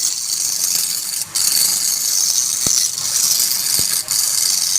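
Woodturning lathe with a cutting tool shaving spinning wood: a steady, loud, high hiss that breaks off briefly twice as the tool lifts from the wood.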